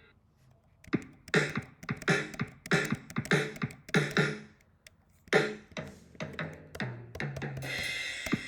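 A sampled GarageBand drum kit playing a short beat of kick and snare hits, pausing briefly midway. Near the end a cymbal crash rings on.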